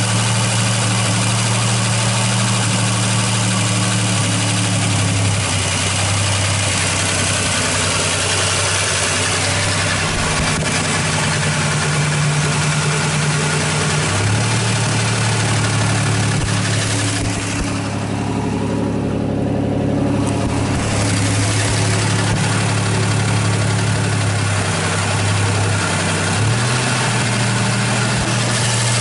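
1986 Buick Grand National's freshly rebuilt turbocharged 3.8 L V6 running on its first start-up, idling steadily. Its speed shifts several times, dropping and picking up again around the middle and stepping up once near the end.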